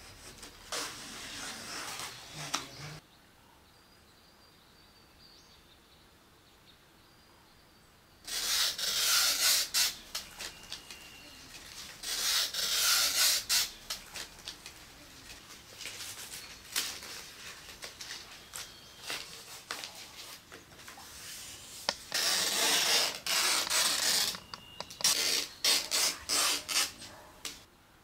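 Dry palm-leaf strips rustling and scraping against each other and the woven mat as they are handled and worked. It comes in repeated scratchy bursts, with a pause of about five seconds after the first.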